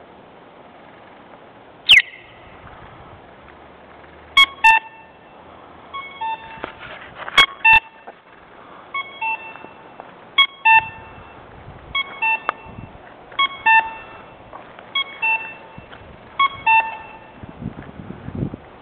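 Accessible pedestrian crossing signal's sound beacon beeping, stuck on because it is broken: short, shrill double beeps about every second and a half, starting about four seconds in. A single sharp falling chirp sounds about two seconds in.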